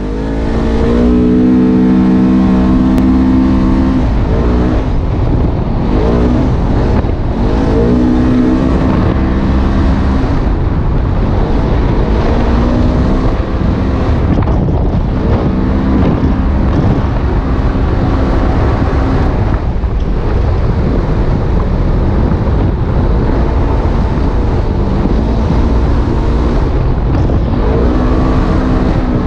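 Polaris RZR 900 S side-by-side heard from inside the cab under way on a dirt trail: its twin-cylinder engine runs steadily, its pitch rising and falling every few seconds with the throttle, over a constant low rumble of the drivetrain and tyres on the dirt.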